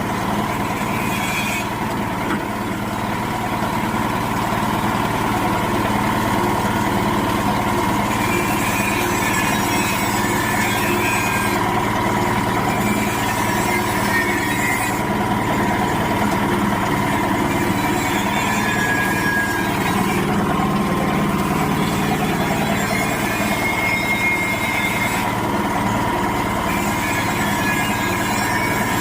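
Areca nut splitting machine running steadily, a constant mechanical hum with a high hiss that rises and falls every few seconds.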